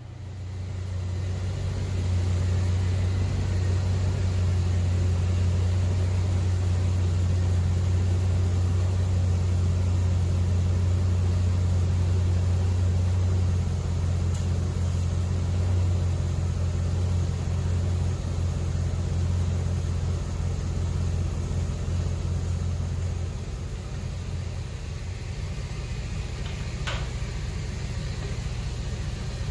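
GMC plow truck's engine idling steadily with a low hum, settling a little quieter a little over twenty seconds in. A single sharp click near the end.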